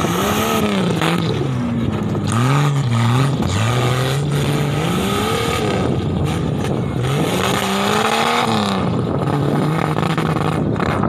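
Off-road buggy engine revving hard as the buggy drives over a dirt track, its pitch rising and falling again and again, with short stretches held steady between throttle changes.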